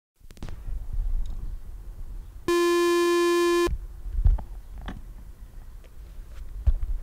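Low handling rumble and light knocks on a condenser microphone in a furry windshield. About two and a half seconds in comes a loud, steady buzzy beep just over a second long from a small ASC sync beep box, marking the head slate for syncing the film camera with the Nagra 4.2 tape.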